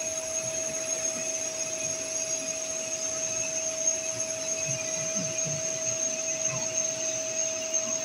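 CNC lathe running a turning cycle: a steady machine whine, one fixed tone over a hiss, without a break.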